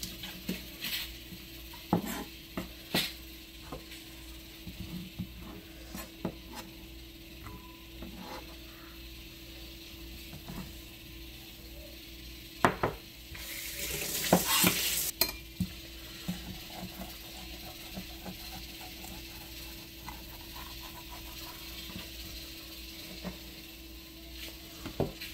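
Chef's knife tapping and scraping on a plastic cutting board as green chilies are sliced and handled. A denser scraping, rustling stretch comes about halfway through as the chilies are gathered into a bowl, over a faint steady hum.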